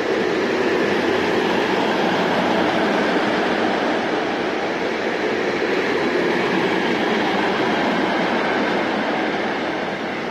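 Freight train of tank wagons rolling past on the rails: a steady rumble of wheels and wagons that eases slightly near the end.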